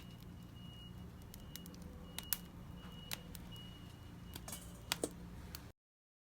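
Wood fire crackling in a small fire pit: irregular sharp pops and clicks over a low steady hum, with a few louder pops toward the end before the sound cuts off abruptly.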